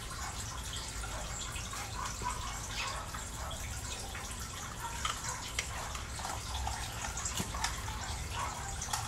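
Steady background hiss and low rumble, dotted with faint scattered ticks and drip-like clicks.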